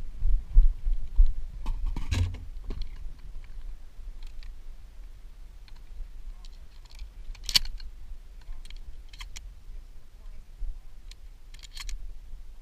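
Scattered sharp clicks and knocks of a pump-action shotgun being handled and loaded over a wooden table, the loudest about two seconds in, about seven and a half seconds in and near the end, over a low rumble.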